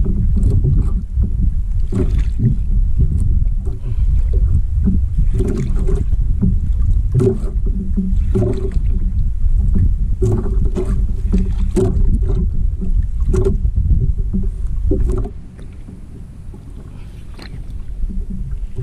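Wind buffeting the microphone and water slapping against the hull of a small outrigger boat, with irregular knocks every second or so. The rumble drops away for a few seconds near the end, then builds again.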